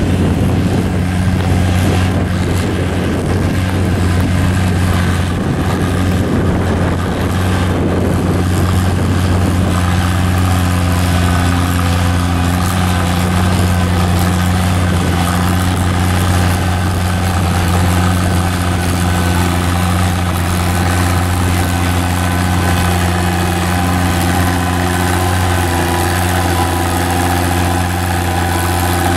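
Antique farm tractor engine running steadily under load as it pulls a weight-transfer sled, holding an even pitch with no revving.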